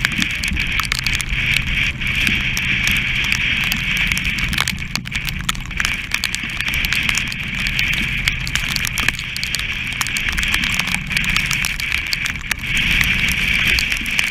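Strong wind and rushing sea on a sailing yacht's foredeck in heavy weather, with spray pattering and crackling on the camera's waterproof housing and the half-lowered staysail flapping.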